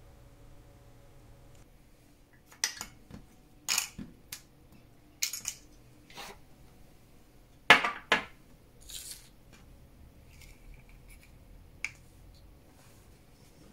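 Small objects being handled and set down on a hard workbench: a bottle and clear plastic dishes and lids click and knock in a loose series, the loudest knock about eight seconds in, with a brief scrape of a plastic lid sliding across the bench.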